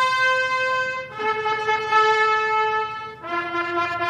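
Military brass band playing a fanfare in long held notes that step down in pitch, once about a second in and again about three seconds in.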